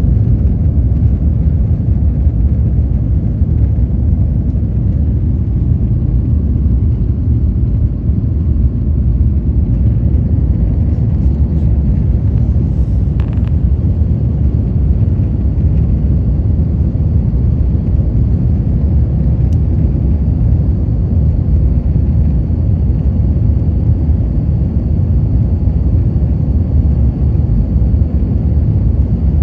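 Loud, steady low rumble of an Airbus A350-900's Rolls-Royce Trent XWB engines and airflow, heard from inside the passenger cabin. A faint, steady high whine joins about two-thirds of the way through.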